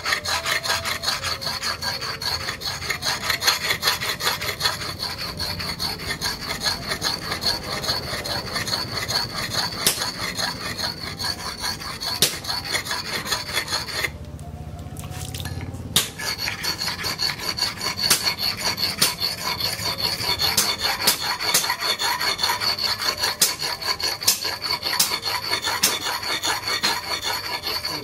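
Leaf-spring steel axe blade being honed on a wet sharpening stone: rapid back-and-forth scraping strokes of steel on stone, with a short pause about halfway through.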